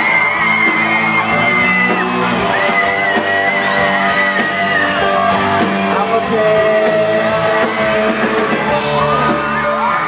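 Live pop band playing with a man singing into a microphone, and fans screaming and yelling over the music.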